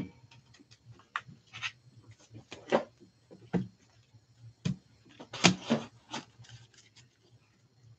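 Trading cards in plastic sleeves being handled and sorted: scattered light clicks and rustles at an irregular pace, the loudest about five and a half seconds in.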